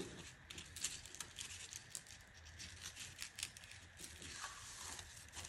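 Green crepe paper faintly rustling and crinkling as it is handled and laid down, with many small irregular crackles.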